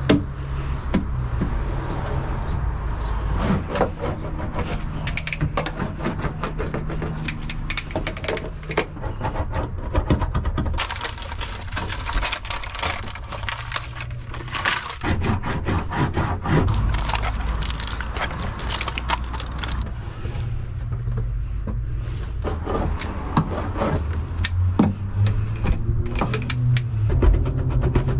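Irregular clicks, scrapes and crackles from hands-on work inside a car, over a steady low rumble.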